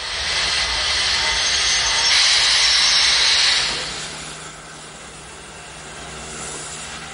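Vintage steam locomotive letting off a loud hiss of steam, which cuts off about four seconds in, leaving a quieter rumble with a low steady hum.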